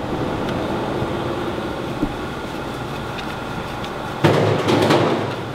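Steady mechanical hum and hiss of workshop background noise. About four seconds in, a louder rough rasping noise lasts about a second.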